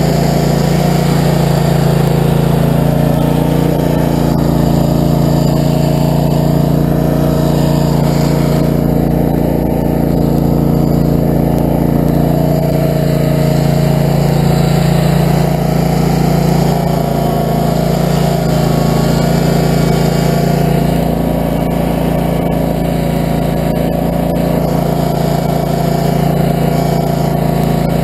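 Barreto stump grinder's gasoline engine running steadily at a constant speed as the machine travels across the grass on its tracks.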